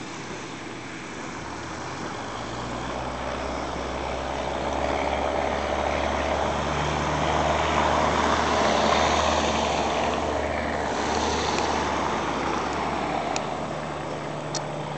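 Cessna 172's piston engine and propeller at takeoff power during a touch-and-go, growing steadily louder as the plane rolls past on the runway, loudest about halfway through, then easing off as it lifts off and climbs away.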